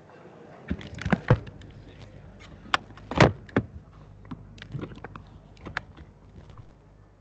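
Handling noise: a run of knocks, clicks and rustles, as of a microphone or camera being picked up and moved, with a cluster of sharp knocks about a second in and the loudest knock about three seconds in, then lighter clicks.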